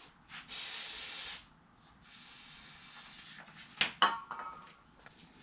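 Aerosol carburetor cleaner sprayed in one burst of about a second onto a dirty carburetor emulsion tube and main jet. A softer rubbing hiss follows, then two sharp clicks about four seconds in.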